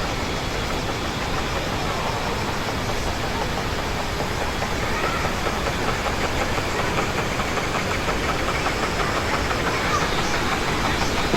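Wooden water wheel turning in rushing stream water: a steady rush of water with a fast rhythmic knocking that grows clearer about halfway in.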